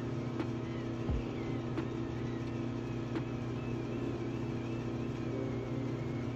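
Electric facial cleansing brush humming steadily as it is worked over a lathered face, with a faint tick about every second and a half.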